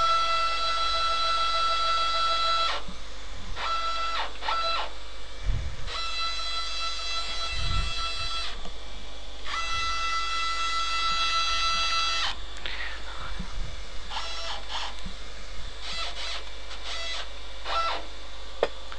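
The CNC mill's axis motors whine with a steady pitched tone while the axes jog. There is one long move of about three seconds, two longer moves in the middle, and a string of short jog taps near the end, with a couple of low thuds in between.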